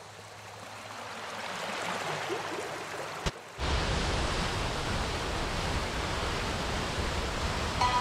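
Waterfall rushing, a steady noise of falling water that swells over the first three seconds. About three seconds in it breaks off with a click and returns louder and deeper.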